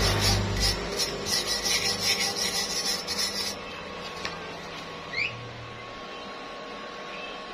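Steel wire brush scrubbing across a freshly welded steel pipe joint in quick scratchy back-and-forth strokes, cleaning the weld bead. The scrubbing stops about three and a half seconds in.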